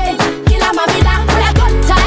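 Instrumental stretch of a Swahili hip hop song: a steady beat of deep kick drums that drop in pitch, with synth chords and hi-hats.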